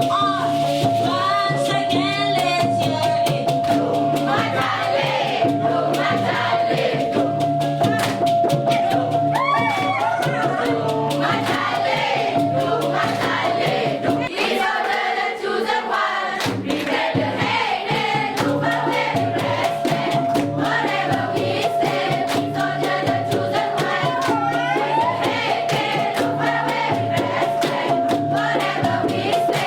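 Dikir barat group singing in chorus over steady percussion, with a long held tone under most of it. The low beat drops out for a couple of seconds about halfway through, then comes back.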